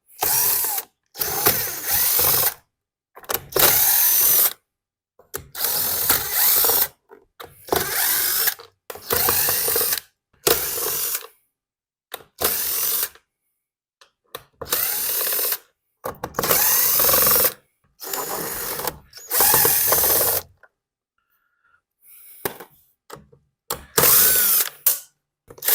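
Power drill-driver spinning out the screws of a leaf blower's plastic housing in short bursts, about a dozen of them, each a second or so long.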